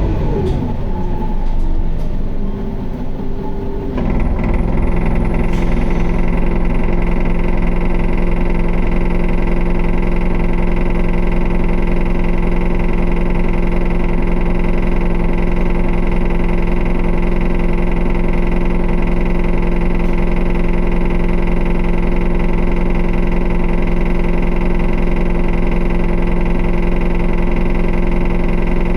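Isuzu Erga bus's four-cylinder diesel engine idling, heard from inside the cabin: a steady hum with strong vibration that starts abruptly about four seconds in and holds at one even pitch.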